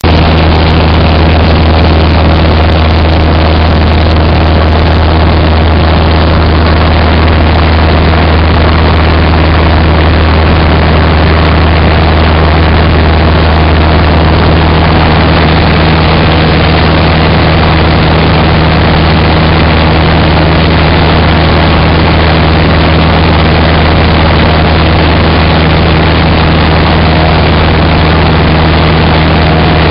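Cessna 172's piston engine and propeller heard from inside the cabin in level flight: a loud, steady drone with a deep hum under a constant rushing noise.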